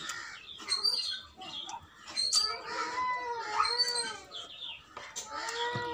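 An animal calling with long, wavering cries, one a few seconds in and another near the end, while birds chirp in short high notes.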